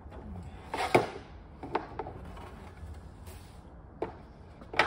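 A fine sharpening stone rubbed lightly along the side of a handsaw's teeth to take off the burr: a soft scrape with a few sharp clicks. The loudest click comes about a second in and another just before the end.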